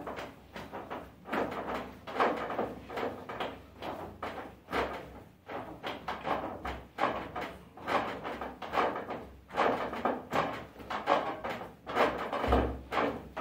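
Enriched bread dough being kneaded on a work surface: a rhythmic slapping and pressing, about one stroke a second, with two heavier thumps near the end. This is the long mixing that makes the dough elastic.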